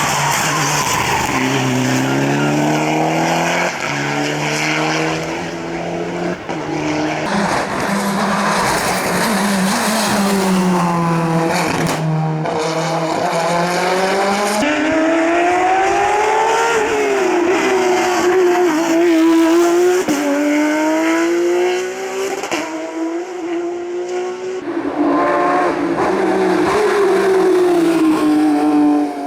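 Hillclimb race cars at full attack, engines revving hard, pitch climbing and dropping again and again through gear changes and lifts of the throttle, over several separate passes.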